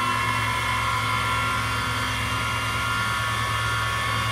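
Mini milling machine with a 1 hp servo motor conversion, running its spindle at top speed, about 3,340 RPM. It makes a steady whine of several tones over a low hum.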